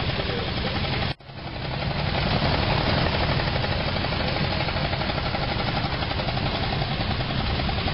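Veteran car engines running at low speed with a fast, even chugging beat. The sound cuts out abruptly for a moment about a second in, then comes back.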